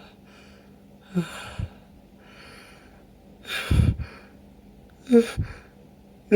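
A person sneezing three times in quick succession, with short gasping inhales between, the middle sneeze the loudest. It is an uncontrolled sneezing fit brought on by chhinkni, a sneeze-inducing snuff.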